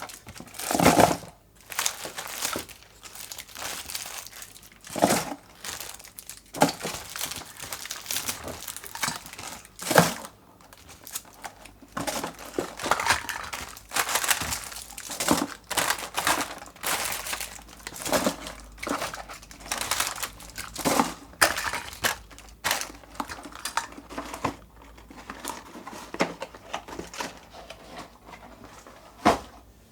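Plastic and foil candy wrappers crinkling and tearing as sweets are handled and opened, in irregular rustling bursts with a few sharper, louder crackles.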